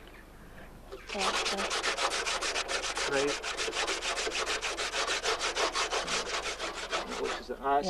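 Rapid back-and-forth rubbing of a gloved hand on the charred metal of a burnt-out Peugeot 106's offside front wing, scrubbing off soot to bring up the stamped chassis number. The rubbing starts about a second in and goes at about six or seven strokes a second.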